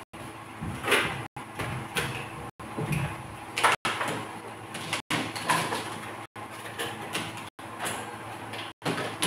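Wax crayon scratching on paper in uneven strokes while a picture is coloured in. The audio cuts out briefly about every second and a quarter.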